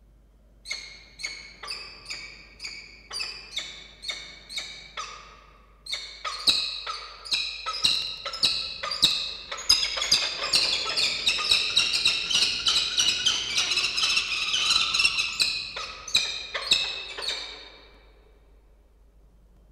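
Peregrine falcons calling in a series of short, harsh calls, about three a second at first, then faster and overlapping from about six seconds in, stopping a little before the end. This is the calling of a pair at a food exchange, as the female comes in to take the male's prey.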